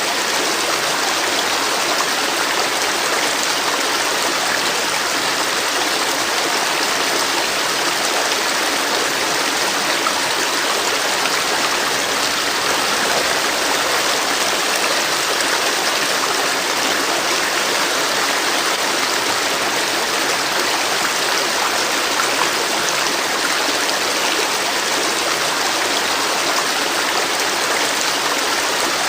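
Flowing river water running over rocks, a steady rushing and splashing.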